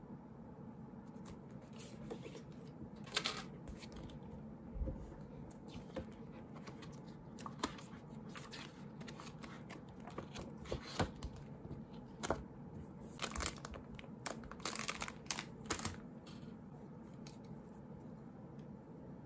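Plastic packaging and a plastic clear file being handled: scattered crinkles and crackles in irregular clusters, busiest in the second half, over faint room tone.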